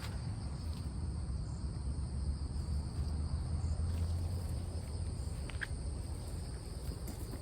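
Insects, such as crickets, chirring steadily in a high-pitched drone over a low rumble, with one short faint chirp a little past halfway.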